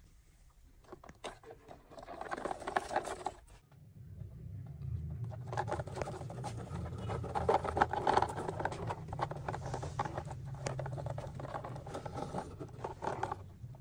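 Plastic toy dump truck pushed by hand over gritty dirt: its plastic wheels rolling and scraping, with small clicks and rattles, starting about two seconds in.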